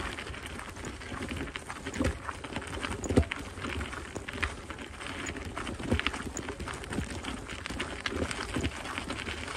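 Footsteps crunching on a gravel path at a walking pace, with a sharper step standing out roughly every second and a half.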